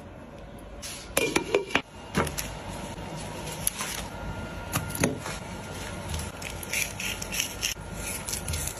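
Raw meat being handled and prepared: a quick cluster of sharp clicks and splashy noises about a second in, then scraping, rubbing and crackling as a whole raw chicken is handled and cut with a knife.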